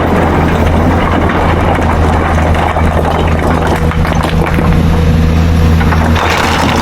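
Excavator's diesel engine running steadily under a constant drone, with a rise of rougher, harsher noise near the end.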